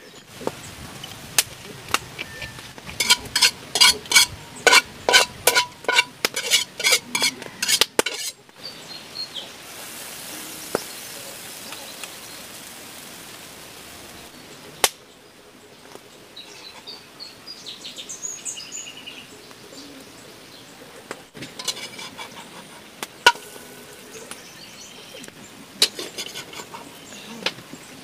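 A metal utensil beating pancake batter in a bowl: a fast run of ringing clinks, about three a second, for some five seconds. Scattered clinks and scrapes follow later.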